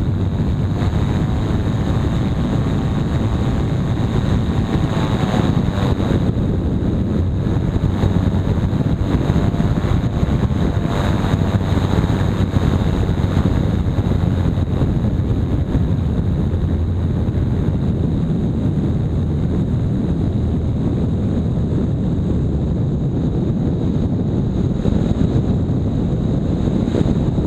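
Streak Shadow microlight's engine and pusher propeller running steadily in flight, heard from a camera on the aircraft, with heavy wind noise on the microphone.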